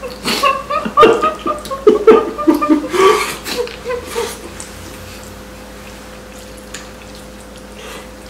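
Two people laughing for about four seconds, then it goes quieter, with a few faint clicks of chopsticks against plastic bowls.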